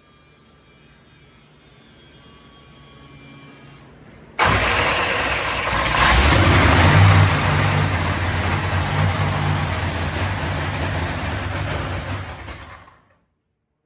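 A faint sound rises for about four seconds, then a Proline Hemi Pro Mod drag-racing engine fires up all at once and runs loud and steady, and cuts off suddenly near the end.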